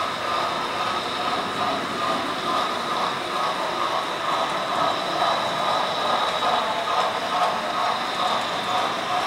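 Model steam locomotive running along the track, pulling a string of freight cars, with a steady, unbroken running sound.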